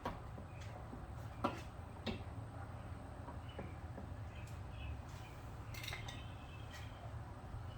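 A few sharp plastic clicks and knocks as a van's liftgate interior trim panel is handled and pushed back into place, over a steady low hum.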